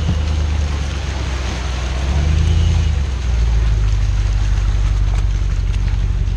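Off-road 4x4's engine running under load as it crawls a trail obstacle. The engine note rises briefly about two seconds in and settles lower about a second later.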